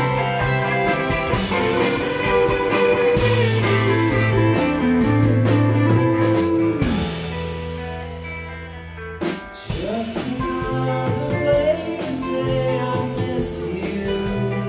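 A live band plays: electric guitars, keyboard and drum kit. About seven seconds in, a held chord rings out and fades. Just after nine seconds, a drum hit brings the full band back in.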